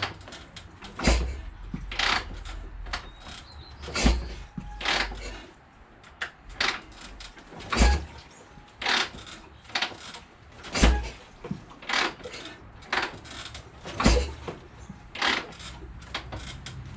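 1978 Harley-Davidson Shovelhead V-twin being kick-started over and over, a heavy thud with each kick about every three seconds and metal clicks and clanks in between. The engine turns over but never fires: a no-start that the owner wonders may come from the aftermarket ignition switch.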